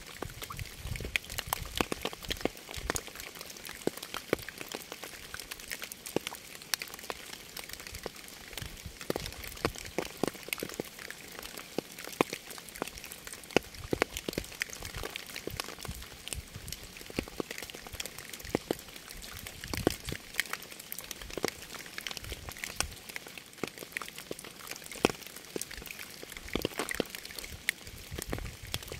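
Rain falling: a steady hiss full of sharp, close individual drop impacts, with the odd soft low thud.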